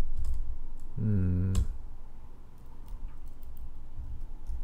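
Computer keyboard typing: scattered keystrokes as CSS is entered in a code editor. About a second in there is a short hummed voice sound.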